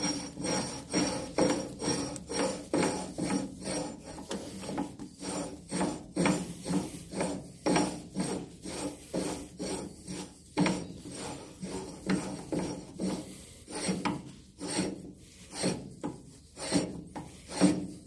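Hand file stroked back and forth over a freshly screw-cut steel thread on the lathe, a steady rasping about two strokes a second, smoothing the cut thread.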